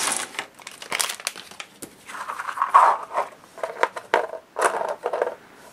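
Packaging crinkling and rustling in irregular bursts while small craft flowers are handled, with a few light clicks.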